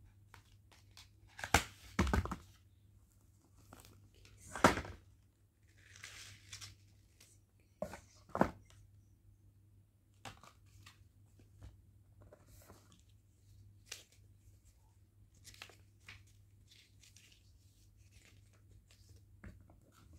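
Phone-box packaging being handled: a cardboard tray and a clear plastic case pulled out and turned over. There are scattered sharp knocks and rustles, the loudest in the first five seconds and small ticks after.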